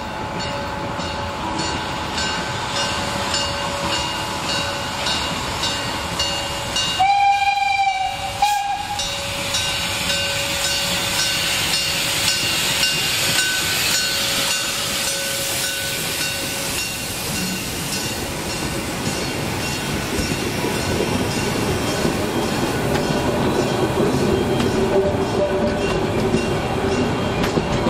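A narrow-gauge steam tank locomotive passing close by. It sounds its whistle about seven seconds in, in a blast broken briefly near its end, then goes by with a regular beat of its exhaust. In the last part its carriages roll past with the clatter of their wheels on the rails.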